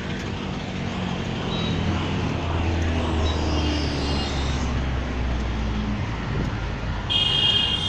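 Road traffic noise from engines running on a jammed city road, with a vehicle's engine rumbling close by about midway. A high-pitched vehicle horn sounds near the end.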